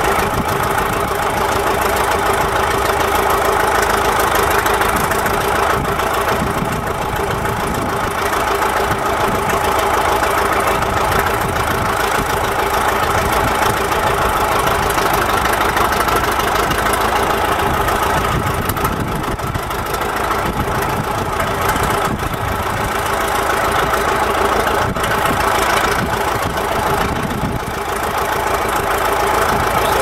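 Caterpillar D7 crawler bulldozer's diesel engine running steadily, with small rises and falls in level while the blade is worked on its old hydraulics.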